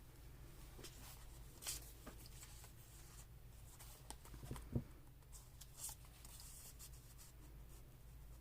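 Faint rustling and handling of paper pieces on a journal page, with a few light taps and one soft thump a little before the middle, over a low steady room hum.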